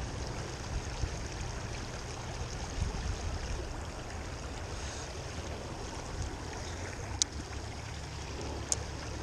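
Shallow stream running over rocks in a riffle: a steady rush of water, with a low rumble beneath it. Two sharp clicks near the end.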